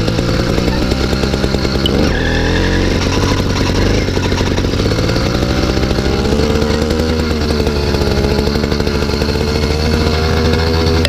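Small two-stroke engine of a 66/80cc motorized-bicycle kit running under way, its pitch rising and falling as the throttle is worked.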